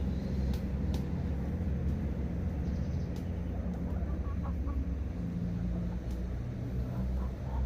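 Chickens clucking a few times over a steady low rumble, with a few faint clicks.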